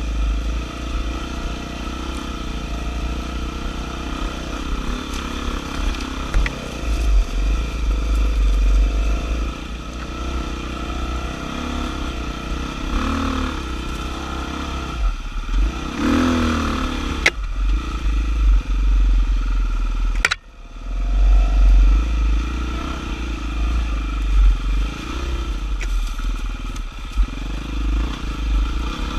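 Off-road motorcycle engine running on a rocky trail, its revs rising and falling as the rider works the throttle. A couple of sharp knocks come about two-thirds of the way through.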